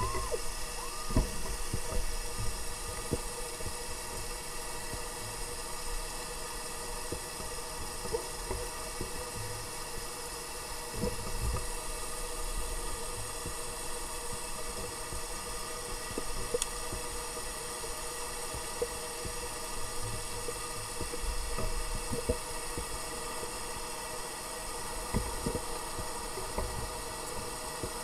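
Underwater engine noise from four cruise ships and their tenders: a very loud, steady drone of many layered tones over a low throbbing rumble, with scattered clicks.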